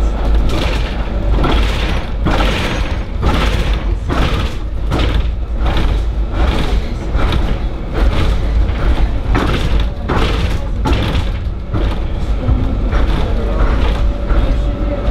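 Tram running along street track, heard from inside the driver's cab: a steady low rumble with a regular series of thumps, about one to two a second.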